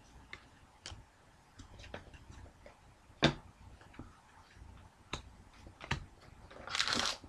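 Trading cards being handled, with scattered light clicks and taps and one sharper tap about three seconds in. Near the end comes a short burst of crinkling from a card pack's foil wrapper.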